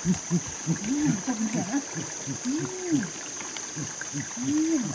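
Wordless human vocal sounds, short grunts and rising-then-falling hums several times a second, over a steady high-pitched whine.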